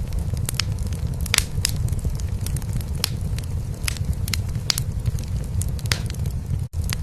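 A cat purring, a steady low rumble, under a wood fire burning in a fireplace with scattered sharp crackles and pops. The sound drops out for an instant near the end.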